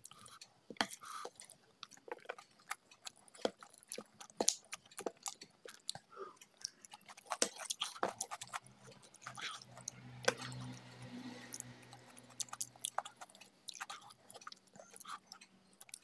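Close-miked chewing and wet mouth clicks of a person eating rice and mutton curry by hand, with soft squishing as fingers mix the rice on a plate. A faint low steady hum comes in about halfway through.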